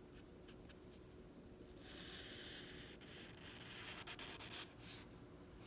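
Drawing strokes scratching on paper: a few faint taps, then about two seconds in a stretch of steady shading strokes lasting about a second, followed by shorter, quieter strokes.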